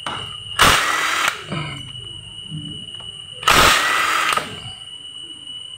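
Cordless impact wrench hammering bolts loose on a motorcycle engine's crankcase, in two short bursts about three seconds apart.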